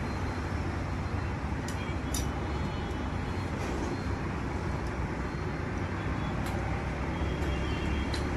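A few light clicks from metal parts being handled on a scooter engine's cylinder head, over a steady low rumble of background noise.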